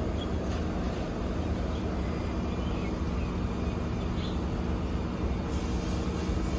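Steady low machinery drone holding one pitch, with a faint hiss joining near the end.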